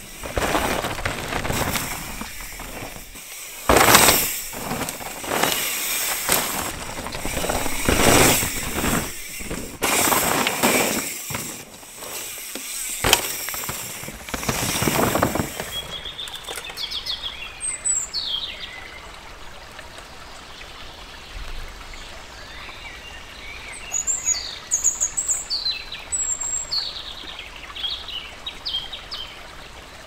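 Mountain bike ridden hard down a dirt trail: tyres skidding and crunching through loose soil in repeated surges, with a sharp knock near the end of the riding. About halfway through the riding stops, and birds chirp and sing over quiet outdoor air.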